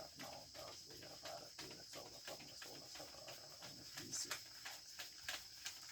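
Faint, steady high-pitched chirring of insects, with scattered small clicks and rustles over it.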